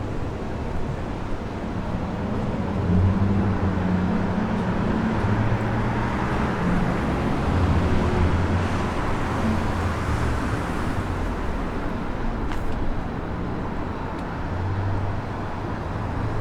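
City street traffic: the low rumble of a vehicle engine close by from about three seconds in, over a wash of passing traffic noise that swells in the middle and eases off toward the end.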